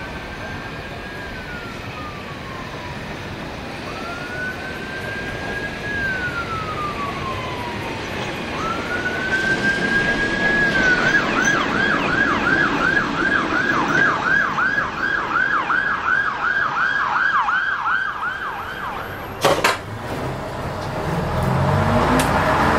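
Emergency vehicle siren: three slow rising-and-falling wails, then a fast yelp of about two or three sweeps a second for some eight seconds before it stops. A sharp click follows, and a vehicle engine rises in pitch near the end.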